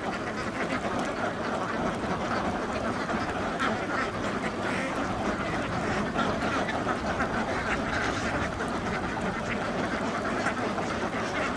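A large flock of domestic ducks quacking, many calls overlapping without pause into a steady din.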